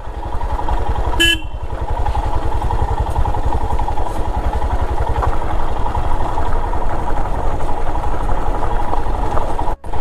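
Motorcycle engine running on the move, with a steady fast low pulsing. A short horn beep sounds about a second in, and the sound drops out briefly just before the end.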